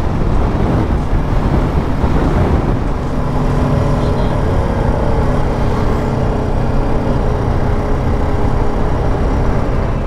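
Motorcycle engine, the BMW G310 GS's single-cylinder, running steadily at road speed under a continuous rush of wind noise, heard from the rider's seat.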